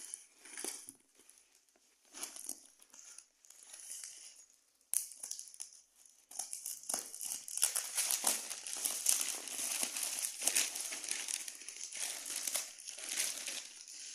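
Parcel packaging crinkling and rustling as it is handled and opened by hand: a few short rustles at first, then continuous crinkling from about six seconds in.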